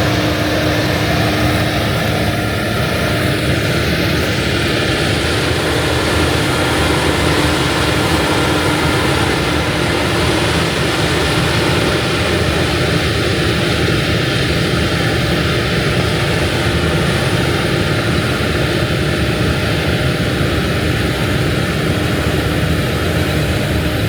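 Heavy farm harvest machinery running steadily, a loud continuous engine drone with a constant hum and no change in pace.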